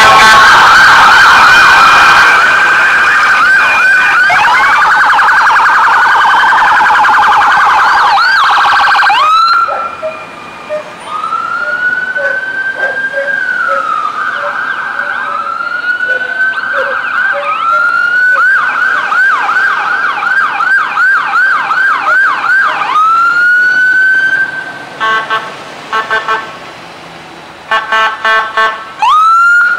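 Several police car sirens sounding together, switching between a slow rising-and-falling wail and a fast yelp, loudest in the first nine seconds while several overlap. Near the end come short stuttering blasts, then a wail starting up again.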